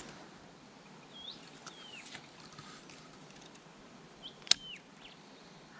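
A bird calling twice, about three seconds apart, each call a short rising whistle followed by a falling slur, over a faint outdoor hiss. Sharp clicks come at the start and just after the second call begins.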